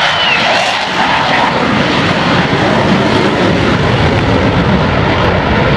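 Loud, steady jet noise from an F/A-18 Super Hornet's twin turbofan engines as it flies over, a deep rumble building in after about a second.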